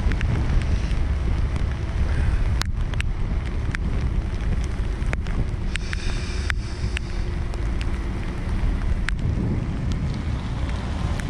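Wind buffeting the microphone as it moves fast along a wet road: a steady low rumble with scattered sharp clicks.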